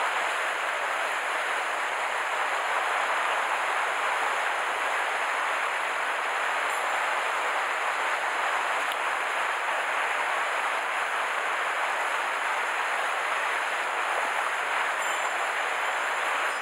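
Steady rushing of flowing stream water, an even hiss that holds without a break.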